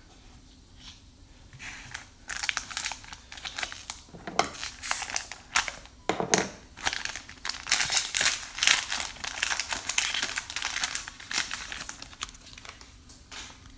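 Plastic wrapper of a 2021 Score NFL trading-card pack crinkling and tearing as it is ripped open by hand. It starts about two seconds in and goes on in uneven bursts until near the end.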